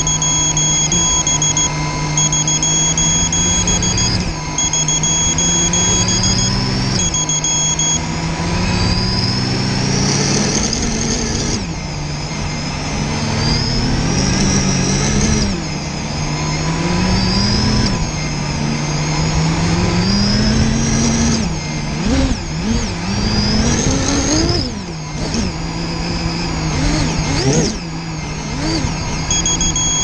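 Brushless motors and propellers of a Vortex 250 racing quadcopter spinning, their hum rising and falling in pitch again and again as the throttle changes, more unsteadily in the second half. One motor is suspected of being bad.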